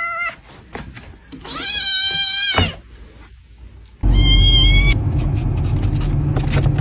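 A cat meows once, a drawn-out cry lasting over a second. About four seconds in, a loud low steady rumble starts suddenly with a brief higher-pitched cry over it.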